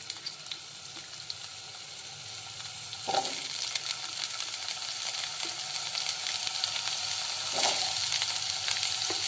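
Wet potato chunks, just taken out of soaking water, sizzling in hot oil in a non-stick kadai. The sizzle surges as more pieces go in, about three seconds in and again near the end, and grows louder overall.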